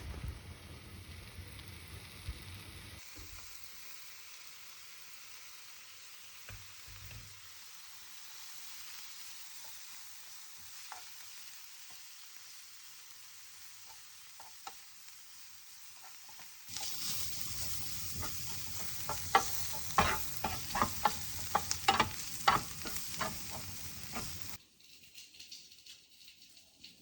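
Food sizzling in a frying pan, a steady hiss that gets louder about two-thirds of the way through, with a run of sharp clicks and taps as a utensil stirs against the pan; the sizzle drops away shortly before the end.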